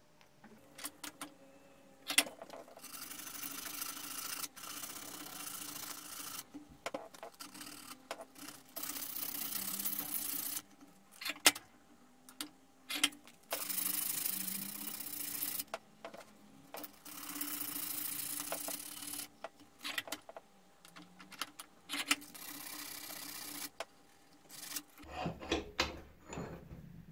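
A small piece of wood being worked by hand with an abrasive: long rubbing strokes, each lasting about one to two seconds, separated by short pauses, with a few sharp clicks. Near the end the rubbing stops and there are light knocks and clatter.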